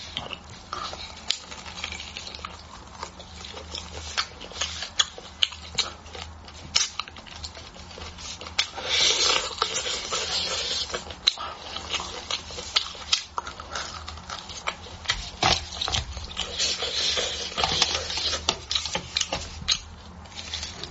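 Close-miked eating of beef bone marrow: wet smacking clicks and sucking. Two longer slurping stretches come about nine and sixteen seconds in.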